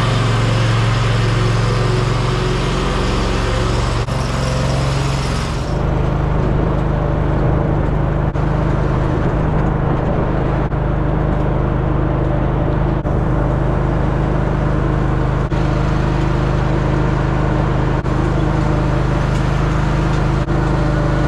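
A vehicle engine running steadily with a low, even hum. A brighter hiss on top drops away about six seconds in.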